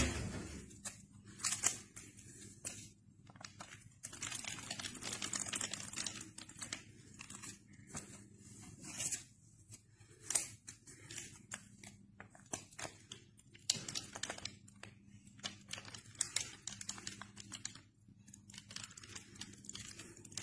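Crisp paper banknotes being handled: irregular rustling, crinkling and flicking as a bundle of bills is thumbed through. A single sharp knock sounds right at the start.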